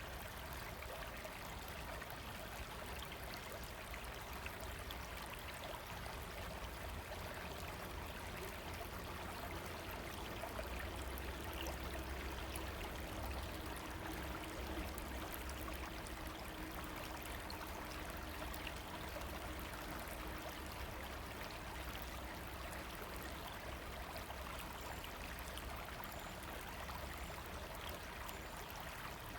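River water running, a steady, unbroken rush.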